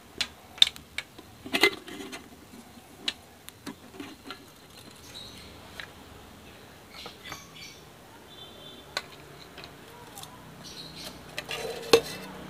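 Nested camping cook pots of a DS-301 cooking set knocking and clinking against each other as they are handled and lifted apart: a run of irregular sharp clicks, a few with a brief metallic ring.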